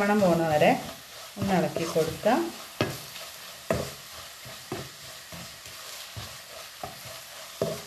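Wooden spatula stirring and scraping an onion and spice masala around a wide pan while it fries in oil with a steady sizzle. The scraping strokes come roughly once a second.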